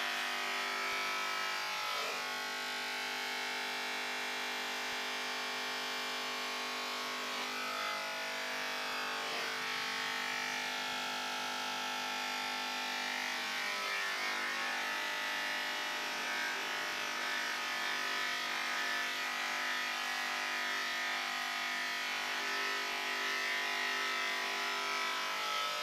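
Corded electric hair clippers buzzing steadily while cutting hair on a head, the pitch dipping briefly a few times.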